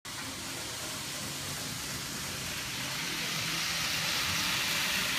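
N-gauge model trains running on a store layout: a steady whirring hiss of small motors and wheels on track, growing a little louder and brighter about three seconds in.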